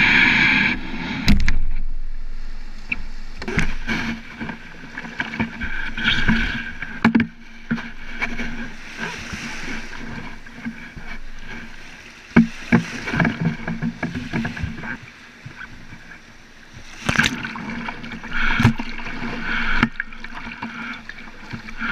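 Surf water rushing and slapping against a surf kayak's hull and paddle blades, heard close up at the bow, with sharp splashes every few seconds as small breaking waves and spray hit the deck.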